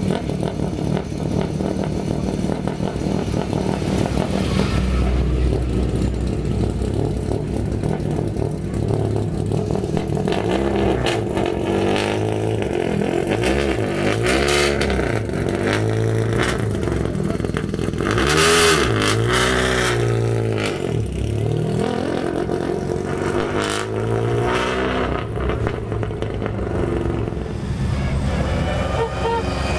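Ford Escort Mk2 rally car engines running, the revs rising and falling again and again through the middle as the cars are blipped and driven off.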